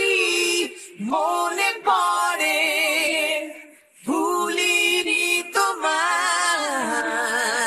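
Isolated lead vocal of a male singer with no instruments, singing a Bengali rock ballad in long, wavering held notes with heavy vibrato. He sings three phrases, with short breaths about a second in and about four seconds in.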